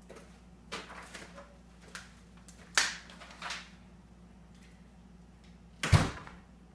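A few soft footsteps, then a door handle and latch clicking as an interior door opens about three seconds in, and the door shutting with a thud near the end.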